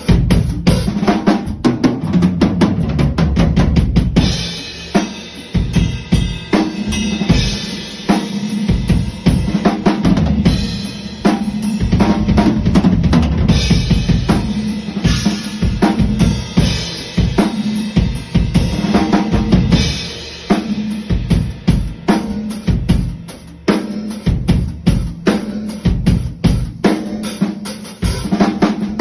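Pearl Reference Pure drum kit played as a groove, with bass drum, snare with rimshots, toms and cymbals in a steady rhythm. The kit is heard as tuned at sound check, a tuning the player is not sure is dialed in.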